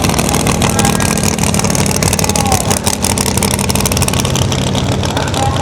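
Drag-race car engines running loudly and steadily, a fast dense pulse of firing strokes with no break.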